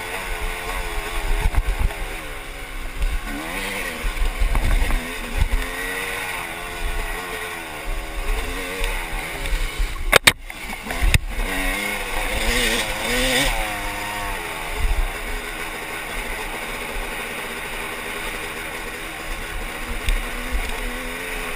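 Yamaha motocross bike engine, heard from a GoPro on the rider while riding a dirt trail, revving up and falling back again and again with the throttle, with wind buffeting the microphone. Two sharp knocks about ten and eleven seconds in.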